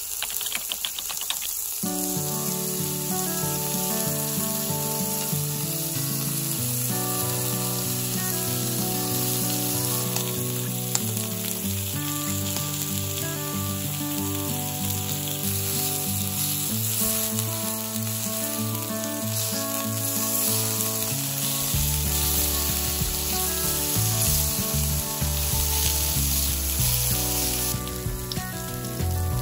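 Meat and vegetables sizzling on a hot tabletop griddle plate, a steady frying hiss that eases near the end. Background music with a bass line plays throughout.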